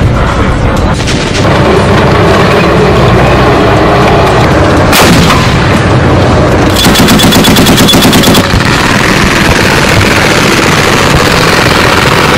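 Automatic machine-gun fire mixed with explosions. A single heavy blast comes about five seconds in, followed shortly by a rapid, even burst of fire lasting about a second and a half.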